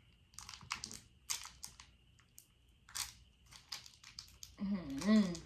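A snack wrapper crinkling and crackling in a string of short, sharp rustles as it is handled. Near the end comes a short voiced exclamation from a person, the loudest sound here.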